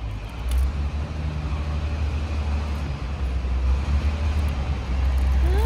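Steady low rumble of city street traffic. Near the end comes a brief hummed voice that rises and then falls in pitch.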